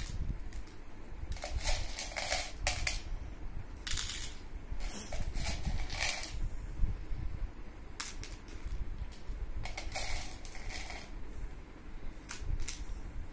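Small plastic pieces rattling and clattering as a toy plastic spatula scoops them from a plastic tub and tips them onto plastic toy plates, in a series of short, irregular clicks and scrapes.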